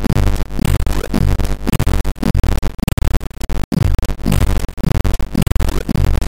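Browser drum machine built with React and howler.js looping synthetic drum samples: a kick drum about twice a second under busy hi-hat and percussion hits. The audio cuts out for an instant a little past the middle, the kind of playback glitch the uploader reports after the sounds have played for a few seconds.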